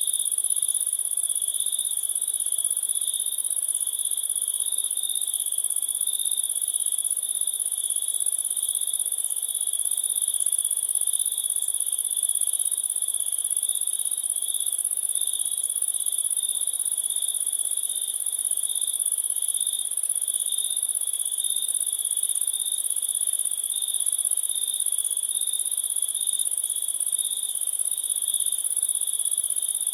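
A dense chorus of crickets chirping without pause, two layers of high, steady trilling at different pitches.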